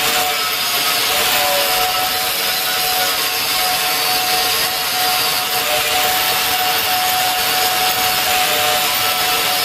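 Belt sander with a coarse 40-grit belt grinding down the rounded head of a steel railroad-track section: a steady, loud hiss of abrasive on steel over a constant motor whine.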